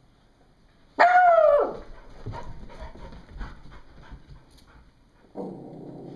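A dog gives one loud, drawn-out bark about a second in, its pitch falling away at the end, followed by light scuffling knocks and, near the end, a lower rough rumbling sound.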